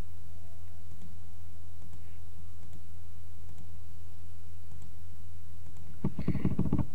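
Faint computer mouse clicks over a steady low electrical hum. Near the end comes a quick run of closely spaced clicks lasting under a second, the loudest sound here, which fits a mouse scroll wheel being turned to zoom.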